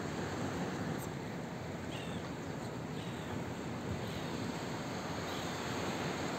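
Rough sea breaking on a stony beach, a steady rush of surf, with a few faint gull calls about two, three and five seconds in.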